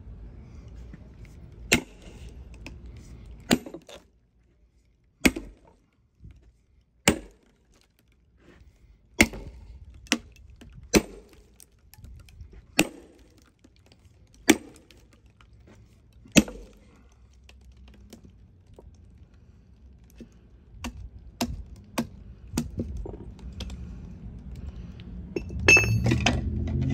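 Sharp wooden cracks from a hickory log being split open with wooden wedges. About ten loud cracks come a second or two apart, then fainter ticks and a low rumble of handling near the end.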